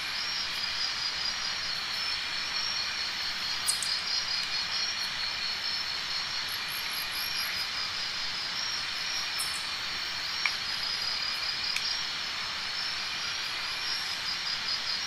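Chorus of chirping insects, steady and high-pitched with a rapid pulse, over a soft outdoor hiss, with a few faint clicks.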